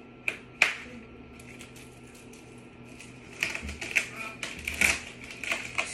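Sharp clicks and light clattering as the metal frame and fittings of a wheeled canvas laundry hamper are handled during assembly. There are two clicks near the start, then a quicker run of clicks in the second half.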